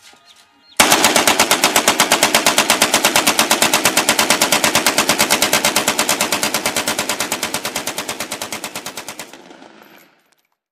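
AK-47 rifle with a drum magazine firing fully automatic in one long continuous burst of about eight seconds, about ten shots a second, gradually getting quieter toward the end before stopping.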